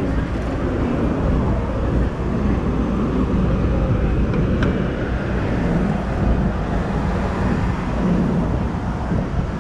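Busy city street ambience: steady traffic noise from cars and buses passing, a constant low rumble.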